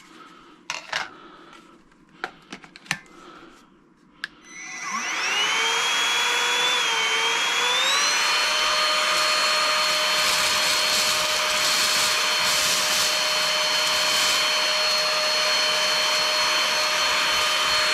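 Tower VL70 cordless vacuum cleaner: a few sharp plastic clicks as an accessory is fitted, then about four seconds in the motor starts. Its whine rises and wavers before settling into a steady high-pitched run.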